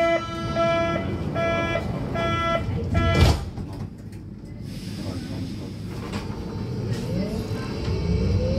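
Berlin U-Bahn train's door-closing warning, a pulsing beep, ending about three seconds in as the sliding doors shut with a thud. Then the electric traction motors start a rising whine as the train pulls away.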